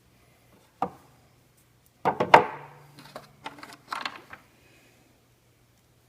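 Clatter of hand tools and parts being handled during assembly: a single knock about a second in, a louder burst of clattering about two seconds in, then lighter clicks and taps.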